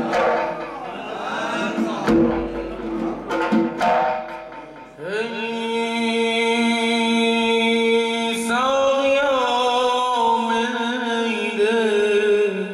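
Zurkhaneh zarb, a large goblet drum, struck by hand in a run of sharp strokes. About five seconds in, a man's voice enters with a long held chant note over it, stepping up in pitch after about eight seconds into ornamented turns.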